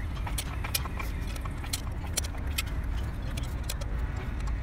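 Irregular light metallic clicks and clinks of a wrench and bolts against a truck gearbox housing during reassembly, several a second, over a steady low rumble.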